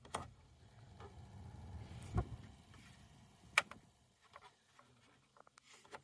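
Fan-speed knob of a 2004 Chevy Colorado's HVAC control clicking as it is turned through its settings, with a faint low hum of the blower motor that builds over the first two seconds and then fades. There is a thump about two seconds in and a sharp click about a second and a half later. The blower is being tried on its speeds with a new resistor and connector fitted.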